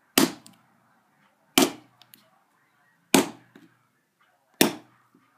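Four hard, sharp blows about one and a half seconds apart, each a crack that dies away quickly: a cracked iPod being smashed against a wooden surface.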